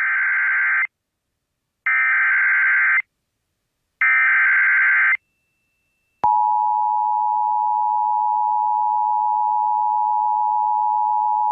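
Emergency Alert System SAME header: three bursts of warbling digital data tones, each about a second long. About a second after the last burst comes a long, steady attention tone lasting about five seconds, which announces a severe thunderstorm warning.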